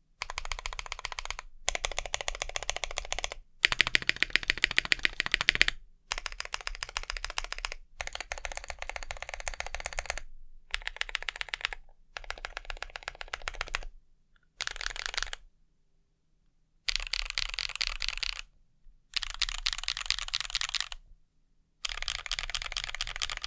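Mechanical keyboard with lubed and filmed Drop Holy Panda tactile switches and GMK Cherry-profile ABS keycaps being typed on fast, in about a dozen runs of dense key clacks with short pauses between them.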